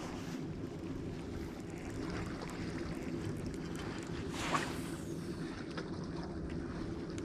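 Steady low machine hum, with a brief whoosh about four and a half seconds in.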